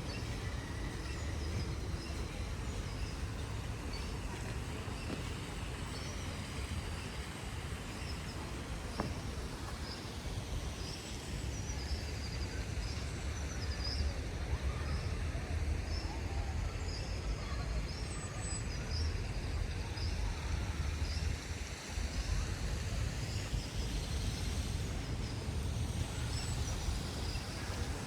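Outdoor city-park ambience: a steady low rumble of city noise, with a small bird chirping over and over in short, evenly spaced high notes through the first two-thirds or so.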